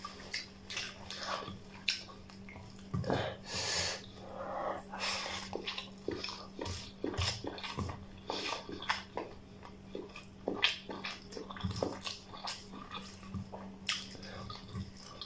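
A person eating rice and curry by hand, chewing with open-mouthed wet smacks and clicks, fingers squelching through the rice, irregular throughout, with a short sharp sniff or intake of breath about four seconds in.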